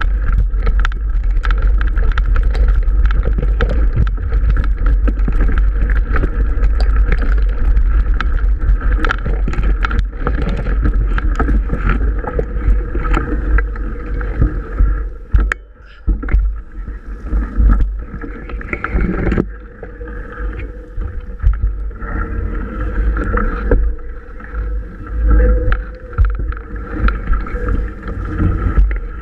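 Mountain bike ridden through tall grass: a heavy wind rumble on the camera microphone, grass swishing against the bike and camera, and many small rattles and knocks from the bike on the rough track. It turns more uneven from about halfway.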